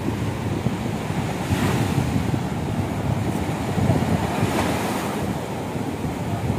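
Small waves washing up onto a sandy beach, two swells of surf hiss about a second and a half and four and a half seconds in, over steady wind rumble on the microphone.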